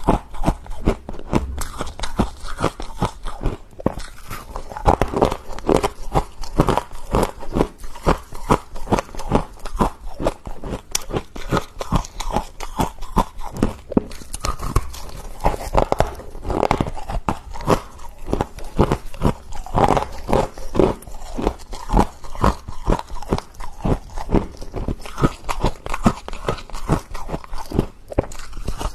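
Freezer frost being bitten and chewed: a steady run of crisp, icy crunches, several a second.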